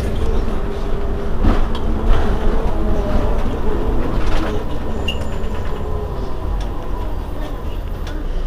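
Heuliez GX 327 city bus's rear-mounted diesel engine idling steadily while the bus stands at a stop, with a few short knocks about a second and a half, two seconds and four seconds in.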